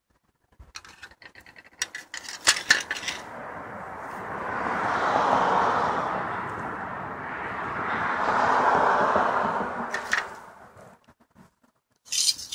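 Metal clinks and knocks as a steel clutch pedal assembly and its bracket are picked up and handled, loudest in the first few seconds. A broad rushing noise then swells, dips and swells again before fading.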